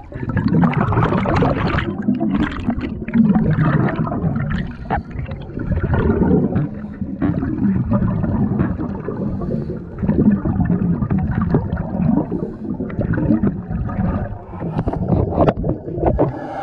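Underwater bubbles gurgling and water churning, picked up by an underwater camera just below the surface. The sound comes in irregular surges, dipping briefly twice.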